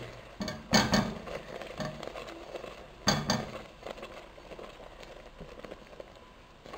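Wire whisk stirring thickened milk and sugar in a cooking pan, clinking and knocking against the pan, with two louder clusters of knocks about a second in and about three seconds in and lighter ticks between. The milk is reducing into condensed milk.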